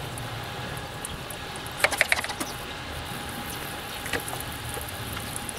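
Hand pressure sprayer being worked while spraying primer onto a wall: a quick cluster of sharp plastic clicks about two seconds in and a single click a couple of seconds later.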